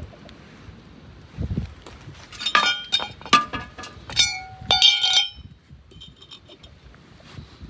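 Hard objects clinking together, about five sharp strikes that ring briefly, between two and five seconds in, after a dull thud near the start.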